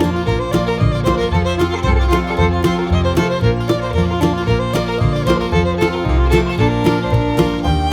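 Background music with a steady beat, played on string instruments.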